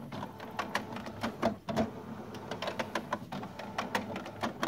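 HP Deskjet F-series inkjet printer running a test print: its pick-up roller pulling a sheet from the front tray and the feed and carriage mechanism working, with quick, irregular clicks over a steady hum. The roller's worn rubber has been built up with tape underneath it, and the printer now feeds the paper.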